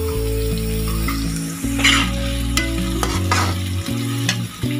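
Strips of carrot and bell pepper sizzling in hot oil as they are stir-fried in a wok, a metal spatula scraping and tossing them now and then. Low held notes that change every half second or so run underneath.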